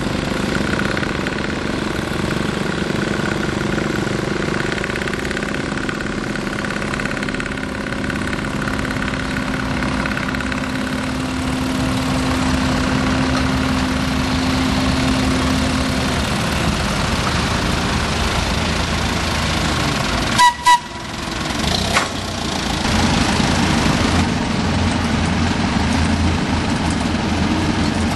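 Engine of a small Brookville industrial locomotive running steadily. It breaks off briefly with a couple of clicks about two-thirds through, then a deeper engine hum carries on.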